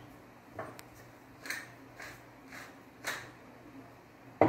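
Wooden pepper mill being twisted to grind pepper over a bowl, in several short separate bursts. A sharp knock just before the end is the loudest sound.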